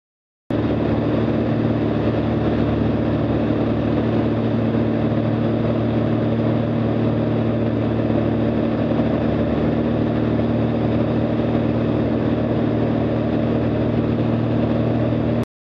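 Light aircraft's piston engine and propeller droning steadily inside the cockpit in cruise, a constant hum with two steady low tones over a rushing noise. It starts abruptly about half a second in and cuts off abruptly just before the end.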